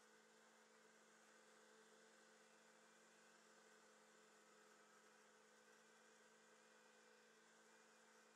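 Near silence with a faint steady hum and hiss.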